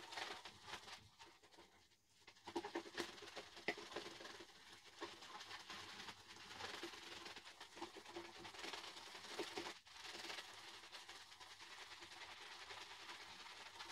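Yaqi 24 mm synthetic shaving brush whipping shaving-soap lather in a wooden shaving bowl: a continuous wet swishing with fine crackle, quieter at first and fuller from about two seconds in.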